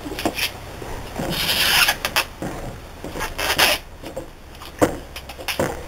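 Corn husks being ripped and rustled as ears of fresh corn are shucked by hand, with two longer tearing rasps and scattered handling clicks.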